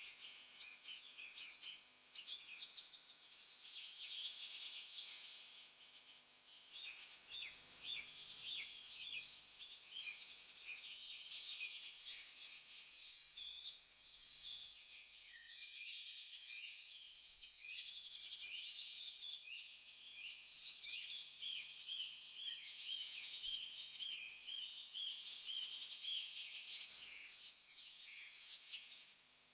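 A chorus of birds chirping and calling, many short high notes overlapping without pause, easing briefly twice.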